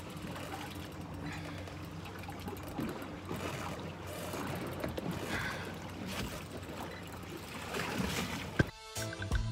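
Water sloshing and splashing around a small boat at sea, with a steady low hum underneath. Music with a beat cuts in near the end.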